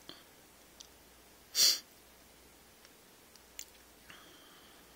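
A person sniffs once, short and sharp, about a second and a half in, with a few faint light clicks around it.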